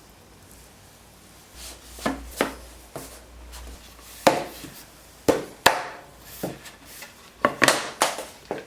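Oak flooring pieces knocking and clacking against each other and the bench as they are handled and fitted together: about a dozen irregular sharp wooden knocks, starting about two seconds in and coming thicker toward the end.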